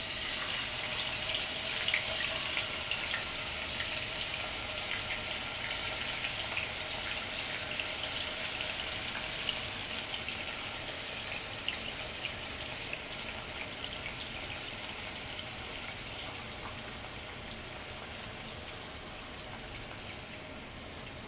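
Boneless chicken pieces sizzling in hot olive oil in a nonstick frying pan as they are laid in to shallow-fry: a steady crackling hiss that slowly dies down.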